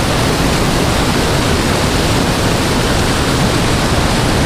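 Churning white water of a spillway outflow, a loud, steady rush.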